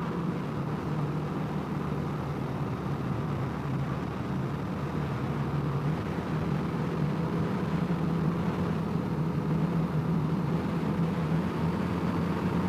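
Honda CRF250L's single-cylinder four-stroke engine running steadily while the bike is ridden at an even speed.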